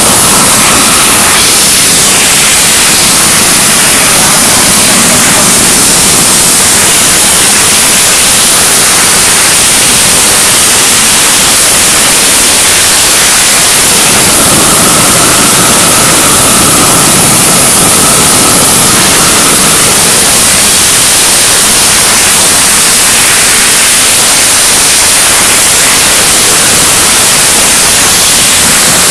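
Loud, steady hiss of gas torches burning on steel: a flange-heating torch and a row of machine-mounted flame-cutting torches cutting plate. A faint high tone comes and goes for a few seconds midway.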